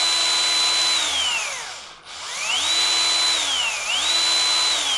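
Bosch cordless screwdriver spinning a small brushless motor in its chuck: a whine that runs at a steady top pitch, winds down to a brief stop about two seconds in, then spins up again, dips once, rises again and winds down near the end. The brushless motor turns with no electrical load, working as a generator.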